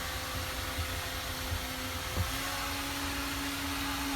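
Steady mechanical hum and rushing noise aboard a cruise ship, with two faint steady tones; the lower tone steps slightly higher just after a faint knock about two seconds in.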